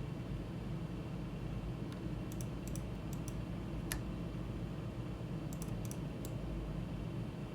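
Computer keyboard keys and mouse buttons clicking in short scattered clusters, about a dozen clicks with the sharpest about four seconds in, over a steady low background hum.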